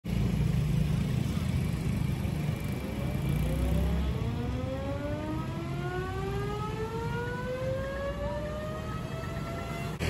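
Air raid siren winding up, its pitch rising slowly and steadily: the city's 10 pm curfew signal. A low rumble is loudest in the first few seconds and eases about four seconds in.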